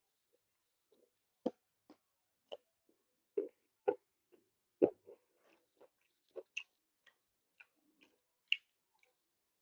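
Close-up mouth sounds of a person chewing puri with beef liver curry: irregular wet smacks and clicks, about two a second, the loudest about halfway through.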